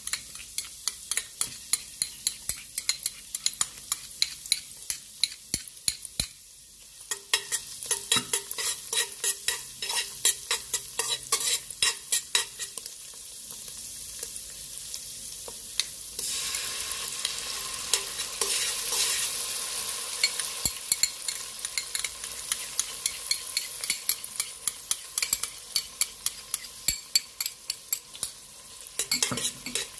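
Minced garlic and onion sizzling in hot oil in a stainless steel pot while a metal spoon stirs, scraping and clicking against the pot bottom several times a second. The sizzle grows louder about halfway through.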